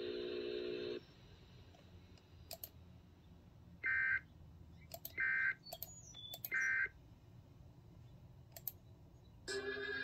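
Emergency Alert System end-of-message code: three short bursts of warbling digital data tone, about a second and a quarter apart, marking the end of the tornado warning. Before them a steady hum cuts off about a second in, a few sharp clicks fall in the gaps, and music comes back in near the end.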